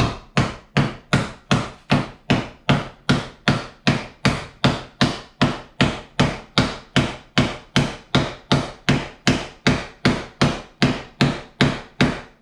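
Hammer striking a block of wood in a steady rhythm, about two and a half blows a second, driving one part of a homemade can stove down inside the other. The knocks stop just before the end.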